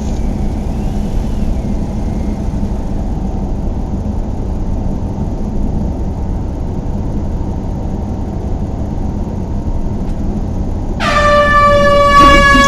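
Steady low rumble, then about 11 seconds in a loud horn blast starts: one held tone with many overtones, sinking slightly in pitch.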